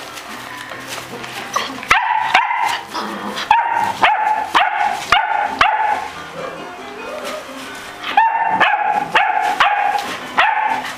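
Puppies barking: about a dozen short, high-pitched barks in two quick runs, with a pause of about two seconds between them.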